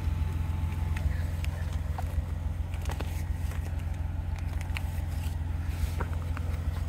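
A car engine idling: a steady low rumble. Light clicks and scrapes from a nylon zippered carry bag being handled sound over it.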